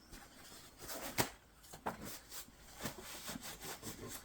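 Irregular rubbing and scraping strokes on the gel-coated metal part, with a sharp knock about a second in and a few lighter clicks after it.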